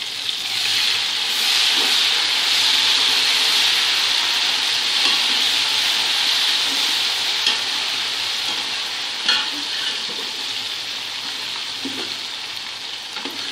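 Sliced onions frying in hot oil in a large metal pot, a steady sizzle that swells about a second in as crushed green chillies are stirred through, then slowly eases. A few clinks of the ladle against the pot.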